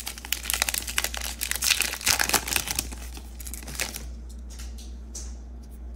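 Plastic trading-card pack wrapper crinkling and tearing as it is pulled open and the cards are slid out. About four seconds in the crackling dies down to a few light clicks as the cards are handled.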